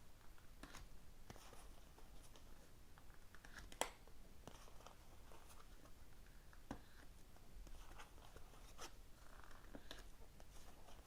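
Tarot cards being shuffled and laid out: faint rustles and light clicks of card on card, with one sharper snap about four seconds in.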